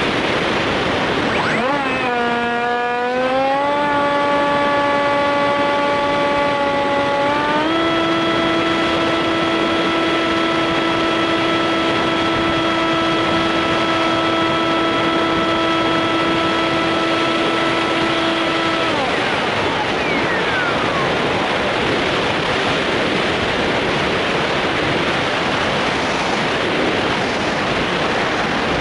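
Foam RC plane's motor and propeller, heard from a camera on the plane's nose. A steady pitched drone spins up about a second and a half in, rises a little, steps higher near eight seconds, then winds down and cuts off a little after eighteen seconds. After that only wind rush remains.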